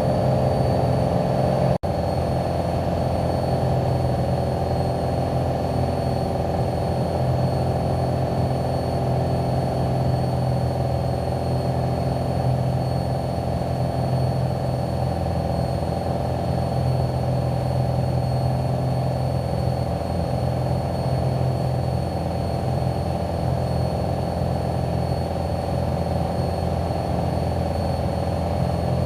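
Single-engine Cessna's piston engine and propeller droning steadily in the cabin during the climb after takeoff, with gear and flaps retracted. A very brief dropout just under two seconds in.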